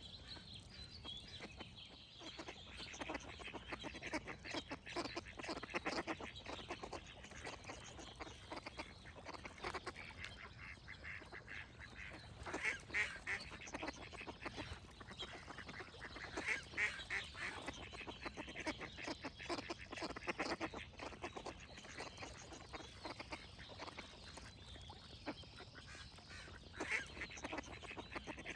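Ducks quacking in rapid runs of short calls, louder in a few bursts, with birds singing in the background.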